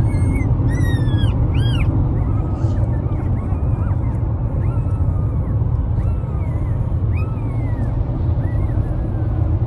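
Young Doberman puppies whining in high, falling cries: several in quick succession in the first two seconds, then fainter ones every second or so. Under them runs the steady low rumble of a car cabin at highway speed.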